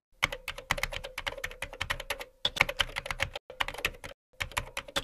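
Keyboard typing sound effect: rapid clicks in several quick runs with short breaks, as text is typed out letter by letter on screen.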